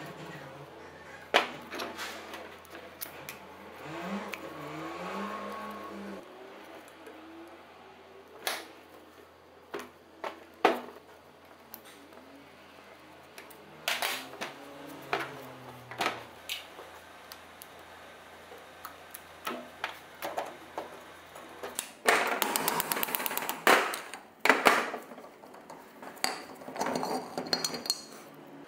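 Metal clinks and knocks of hand tools and loose parts being handled on a workbench, scattered and irregular, with a dense rapid rattling burst of about two seconds roughly three quarters of the way through.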